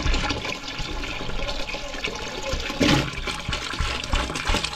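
Water poured in a steady stream into a large metal pot of cut apples, splashing into the water already in it, with a louder splash about three seconds in.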